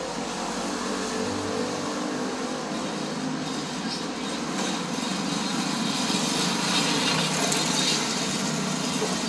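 Jet engine noise of a Boeing 777-200LR on final approach, a steady rushing sound growing gradually louder as the airliner nears.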